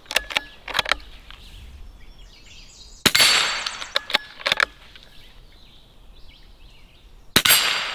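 A .22 LR Ruger American bolt-action rifle firing twice, two sharp cracks about four seconds apart, each with a short fading tail. Light metallic clicks of the rifle being handled come at the start and between the shots.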